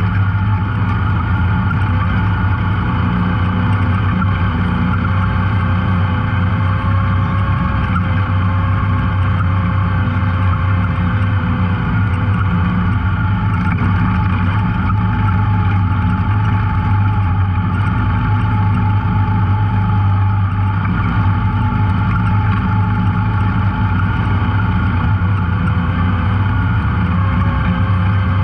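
Off-road vehicle engine running steadily under load on a trail climb: a low, even drone with a thin, slightly wavering whine above it.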